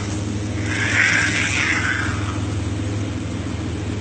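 Steady low motor hum, like an engine running, with a brief hissing noise about a second in.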